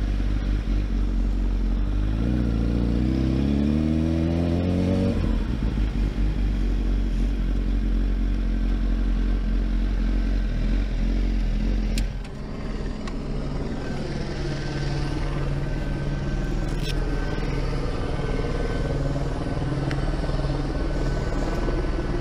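Honda sportbike engine accelerating, its pitch rising over the first few seconds, then running steadily at speed. About halfway through it drops to a quieter, steady idle.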